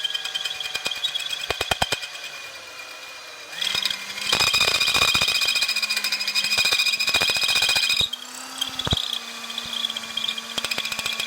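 Power drill running under heavy pressure, its bit rubbing in a broken-off mirror stud in the scooter's brake-lever mount and not cutting. A high-pitched whine with rapid chattering clicks, louder from about four to eight seconds in.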